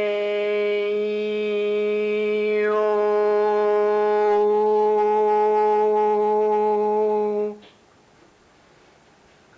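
A person's voice chanting one long note on a steady pitch: an open "ah" that closes into a hum about two and a half seconds in, then breaks off after about seven and a half seconds.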